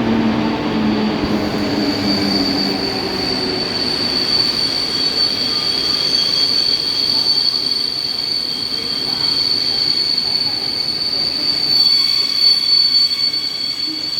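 Train wheels squealing on the rails with a steady, high-pitched squeal as the train moves through the station. A lower hum falls in pitch and fades during the first few seconds.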